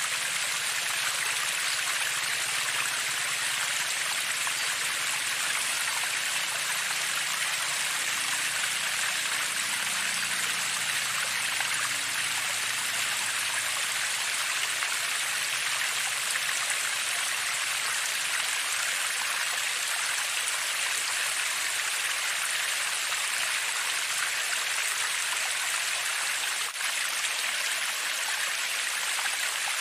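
Shallow water running steadily along a narrow stone-walled irrigation channel, an even rushing hiss.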